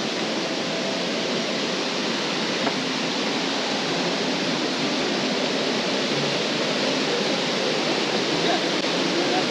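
Steady rushing of a small waterfall pouring into a fast-flowing river.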